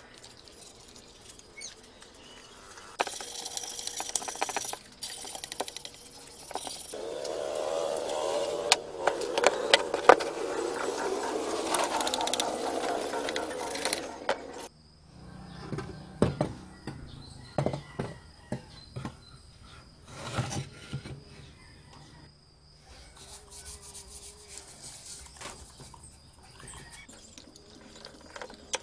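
Scattered scrapes and clicks of a hand scraper working loosened paint off an aluminium scooter crankcase cover. These are preceded by about ten seconds of a louder steady rushing noise that cuts off abruptly about halfway through.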